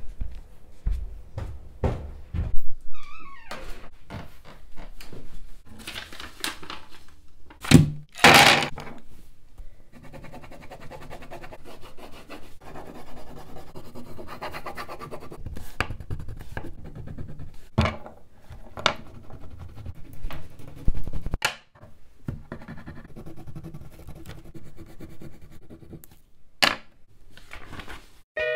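Scattered thuds and knocks from handling things, with a crayon scribbling back and forth on paper on a tabletop through the middle stretch.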